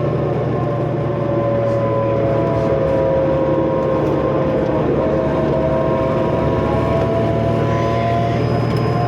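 2005 New Flyer D40LF bus's Cummins ISL diesel running under way, with turbo whine over a steady engine drone. The whining tones sag slowly, break about halfway through, then climb again.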